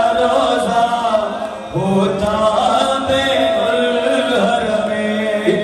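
A man's voice chanting a noha, a Shia lament, in long held melodic lines, with a short break about a second and a half in.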